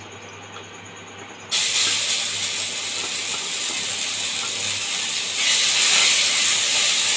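Ground peanut, garlic and chilli paste hitting hot oil in an aluminium kadai and sizzling: a sudden loud hiss starts about a second and a half in and grows louder about five seconds in as the paste is stirred with a wooden spatula.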